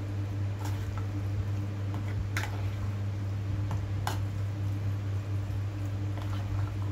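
A spoon stirring wet, dressed black fungus (wood ear mushroom) salad in a plastic bowl, giving a few light clicks and squishes, over a steady low hum.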